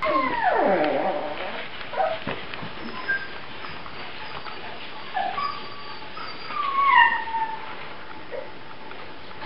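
Five-week-old puppies whining and yelping: a long whine sliding down in pitch at the start, then short high whines and squeaks, and another falling whine about seven seconds in.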